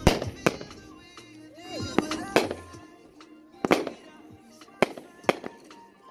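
A 500-gram consumer fireworks cake firing, with about eight sharp bangs of shots and aerial bursts spaced half a second to a second and a half apart. Background music plays underneath.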